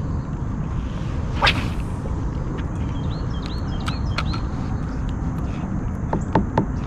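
A fishing rod swished through the air in a cast, once, about a second and a half in, over steady wind rumble on the microphone. A few short high chirps follow, and a few light clicks near the end.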